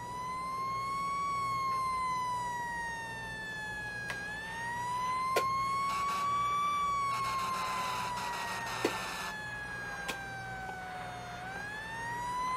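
A siren wailing: its pitch rises quickly, then falls slowly, over and over in cycles of several seconds.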